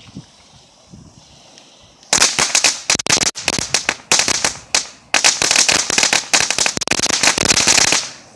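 Two Magic Whip crackling novelty fireworks fused together going off: about two seconds in, a rapid run of sharp crackling pops starts, like a string of firecrackers, with a couple of brief breaks.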